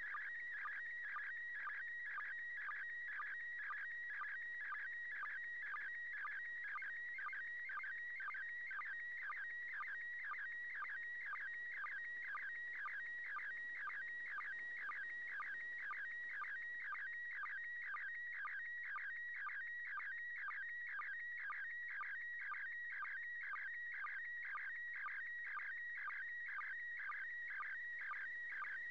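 PD120 slow-scan television (SSTV) signal from the International Space Station, received on an FM radio: a continuous high warbling tone broken by a short dip in pitch about twice a second, each dip the sync pulse at the start of a pair of image lines.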